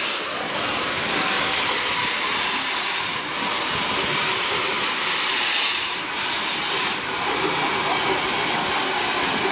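Steam hissing steadily as it escapes low around the front cylinders of a 4-8-2 steam locomotive, easing briefly a few times.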